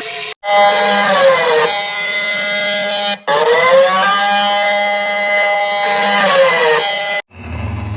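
Synthesized emergency-alert alarm: a loud, buzzy siren-like tone that holds, slides down in pitch, breaks off briefly about three seconds in, comes back low and slides up, holds, then slides down again and stops about seven seconds in.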